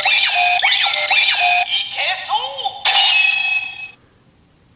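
Ryusoul Changer toy playing its electronic transformation sound effects: synthesized voice and music with repeated swooping tones. It cuts off about four seconds in and is followed by a couple of faint clicks.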